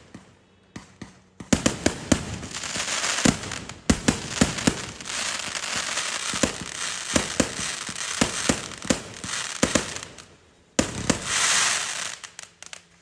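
A 200-shot consumer finale firework cake firing: a dense run of sharp bangs over continuous crackling. It pauses briefly twice, about a second in and again near 10 seconds, each time followed by a fresh volley.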